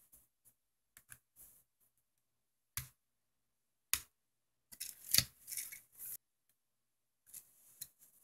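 A small screwdriver prying at the plastic prongs that hold a calculator's circuit board and keypad in its case. There are scattered sharp plastic clicks: single snaps about three and four seconds in, then a denser run of clicking and scraping near the middle, which is the loudest part, and a few faint ticks near the end.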